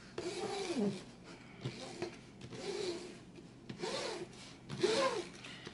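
A folded piece of paper rubbed in about five strokes over the plastic release film of a diamond painting canvas, each stroke with a short squeak that rises and falls in pitch, pressing the film down flat.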